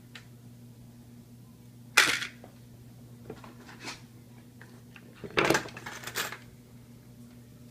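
Small hard parts and tools clattering as they are handled and set down on a workbench: a sharp knock about two seconds in, a few light ticks, then a louder run of rattles around five and a half seconds in, over a steady low hum.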